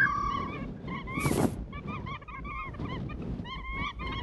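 A flock of water birds calling over one another, many short repeated calls overlapping throughout. A brief rush of noise comes about a second in.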